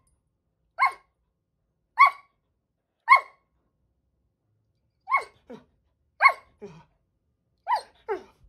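A dog barking: about six short barks roughly a second apart with a longer pause in the middle, each falling in pitch, several followed by a quieter, lower second bark. It is a fit of demanding barking at someone eating a taco, to be given some.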